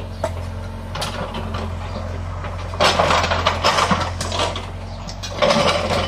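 Small excavator's diesel engine running steadily while brick rubble scrapes and clatters, loudest about three seconds in and again near the end.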